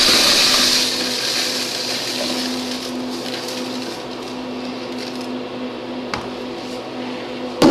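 Steel pin media and small parts pouring out of a plastic bucket into a strainer-type separator: a rushing pour that starts suddenly, is loudest at first and slowly tapers off, with a single sharp knock near the end.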